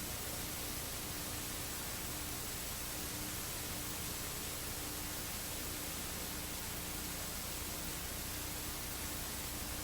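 Steady even hiss of the recording's background noise, with a faint steady hum underneath; no other sound.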